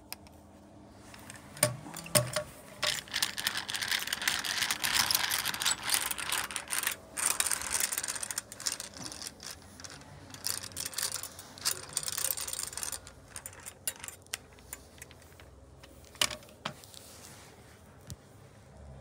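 Vintage hand-cranked rotary egg beater being cranked: its drive wheel and gears clicking as they turn, in a dense run of clicking from about three seconds in to about thirteen seconds with short pauses, then a few scattered clicks.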